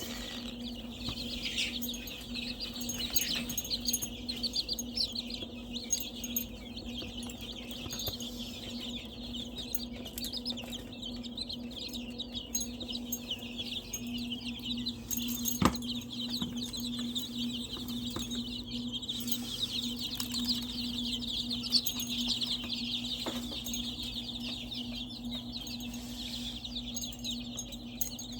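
A pen of small chickens and quail peeping and chirping continuously, many high-pitched calls overlapping, over a steady low hum. Two sharp knocks come about halfway and about two-thirds of the way through.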